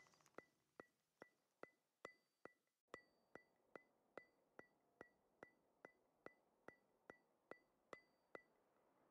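Faint, evenly spaced ticking, about two and a half ticks a second, each tick with a short high ping, as the background music dies away at the start.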